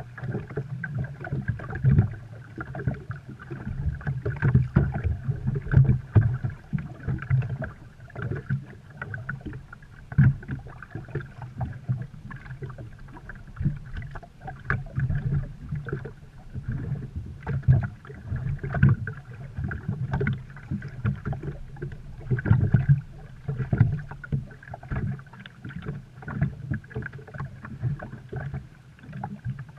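Sea-Doo RXT personal watercraft on the water: an uneven low rumble that swells and drops every second or so, with a faint steady higher tone above it.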